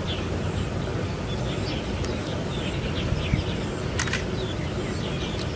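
A prinia (ciblek alang-alang) singing: a rapid, broken run of short, high, falling chirps, over steady hiss and a constant thin high whine.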